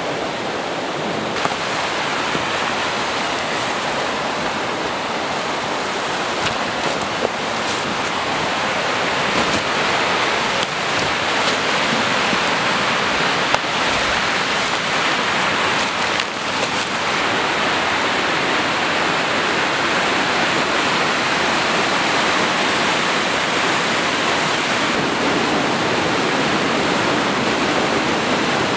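A rushing mountain creek: a steady rush of white water that grows a little louder over the first few seconds and then holds even, with a few faint scuffs of footsteps through the undergrowth.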